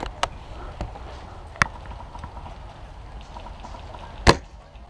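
Airsoft guns firing: a few scattered sharp cracks, the loudest one near the end, over a low rumble of wind on the microphone.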